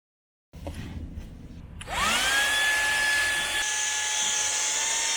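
Handheld 12 V car vacuum cleaner switched on, a SEHENTOOLS CV108: its motor spins up about two seconds in, the whine rising quickly and then settling into a steady high whine over rushing air. Before that there is a short silence and faint rustling.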